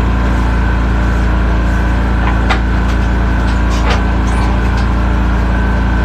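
A steady, loud low mechanical hum, like a running engine, with a few short light clicks about two and a half and four seconds in.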